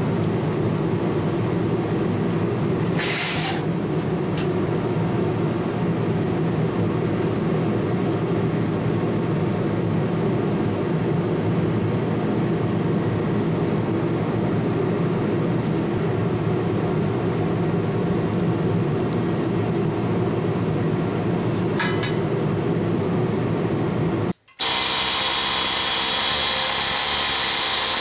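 A Central Pneumatic air hammer with a chisel bit cutting through 11-gauge sheet steel starts suddenly and loudly near the end, after a brief gap. Before that there is a steady low drone with a couple of faint clicks.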